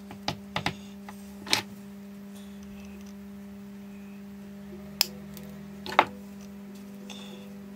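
Light clicks and taps of small steel parts and hand tools being handled on a workbench. Three come in the first two seconds and two more about five and six seconds in, the last the loudest, over a steady low hum.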